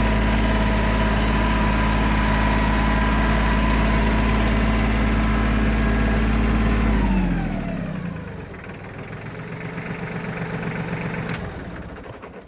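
A vehicle's engine runs loud and steady at one speed. About seven seconds in, its revs and pitch fall away as it slows, and it carries on more quietly before dying out near the end. A single sharp click comes shortly before it dies out.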